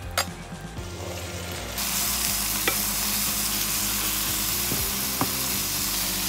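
Grated zucchini, zucchini flowers and onion sizzling in a non-stick frying pan as they start to fry, stirred with a wooden spoon. A metal pan lid clinks as it is lifted off at the very start, the sizzling grows louder about two seconds in, and the spoon knocks the pan twice.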